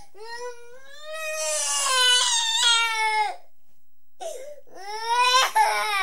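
A toddler of about two and a quarter crying: two long wailing cries, the first about three seconds long, the second starting about four seconds in after a short pause for breath.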